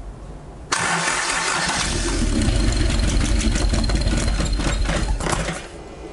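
Toyota 4A-GE twin-cam four-cylinder on side-draft carburettors and a straight-pipe exhaust being started on an engine stand: it cranks and fires, running loud and rough for a few seconds with the throttle worked by hand, then cuts out.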